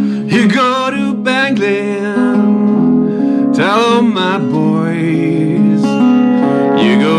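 Live acoustic blues: an acoustic guitar playing steadily under a male voice singing in short phrases, near the start, around the middle and again at the end.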